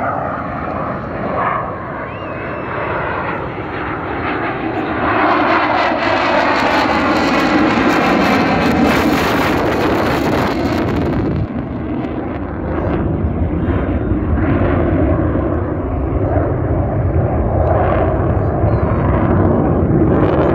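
Military jet flying past overhead. Its noise builds over the first few seconds, is loudest with a sweeping, phasing quality for several seconds in the middle, then eases slightly but stays loud.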